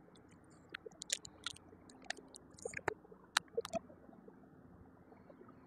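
Faint, scattered short clicks and taps over low background noise, most of them in the first half.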